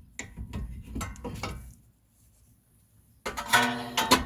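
Front brake caliper on a Honda Civic being worked off the rotor and bracket: small metallic knocks and rattles, then about three seconds in a loud clank with a short metallic ring.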